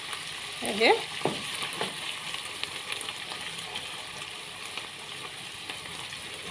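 Minced onions and freshly added garlic sizzling steadily in oil in a cooking pot, with a few faint clicks. The onions have softened to golden yellow in the pan.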